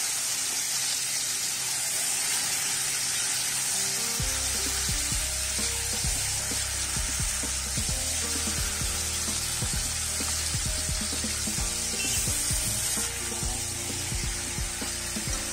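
Chicken pieces, potatoes and onions sizzling in mustard oil in a kadai as they are sautéed. A spatula stirs and scrapes the pan, giving frequent irregular knocks from about four seconds in.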